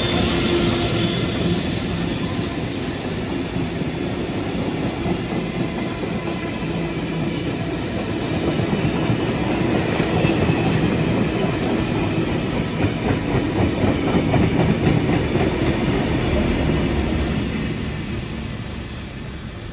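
Heritage passenger carriages of a train hauled by steam locomotive 5917 rolling past, their wheels clattering steadily over the rail joints. The sound fades away near the end as the last carriage passes.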